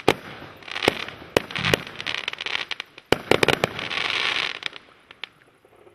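A 100-shot fireworks cake with 2 cm tubes firing its last shots. Sharp bangs from launches and bursts come with a crackling hiss of crackle stars between them, then thin out and stop near the end.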